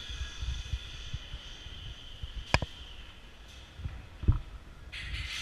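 Two sharp clicks, the first about halfway through and the second just under two seconds later, over low rumbling handling noise.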